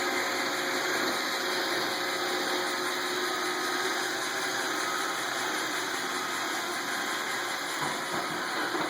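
iRobot Roomba 770 robot vacuum running steadily: an even whir from its vacuum motor and brushes, with faint steady whining tones over it.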